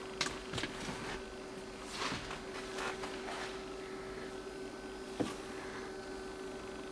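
Rustles and a few light knocks of handling and movement inside a small car cabin, over a steady hum.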